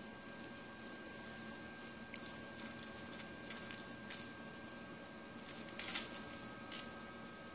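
Gold flakes and small nuggets tipped and tapped out of a small plastic scale tray onto a folded sheet of paper: faint scattered ticks and paper rustles, with a short cluster of louder rustling about six seconds in.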